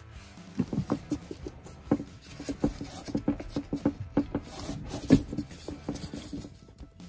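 Irregular light knocks and rubbing as a gloved hand works at the plastic Thetford RV toilet and its water supply line connection, with a louder knock about five seconds in.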